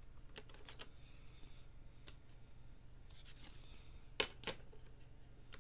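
Trading cards, plastic card holders and a pack wrapper being handled on a table: scattered light clicks and taps with short rustles of the crumpled wrapper, and two sharper clicks about four seconds in.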